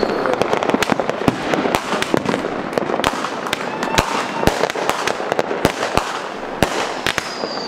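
Aerial fireworks going off in quick succession: sharp bangs and pops, several a second, over a steady hiss.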